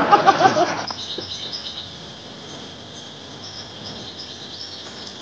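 Faint outdoor ambience of birds and insects chirping steadily, after a voice trails off in the first second.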